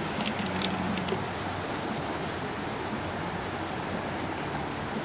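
Steady rushing of river water flowing strongly over a low weir, with a few light clicks in the first second.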